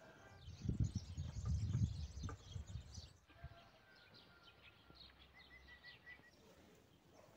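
A low rumble of wind on the microphone for about two seconds. Then small birds chirp and twitter, with a quick run of repeated chirps around the middle.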